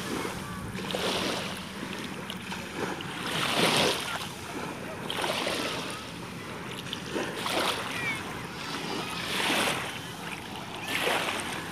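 Shallow waves washing in over sand, the rush of water swelling and fading about every two seconds.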